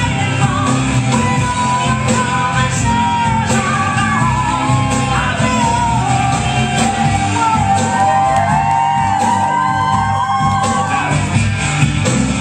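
Song playing loudly, a singer's wavering melody over a steady bass line.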